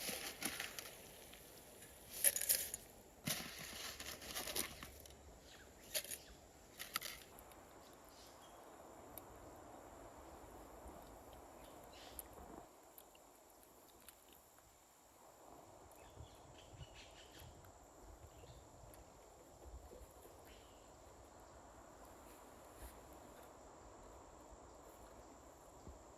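Several short sharp rustling or knocking noises in the first seven seconds, then a faint steady outdoor background with a few light ticks.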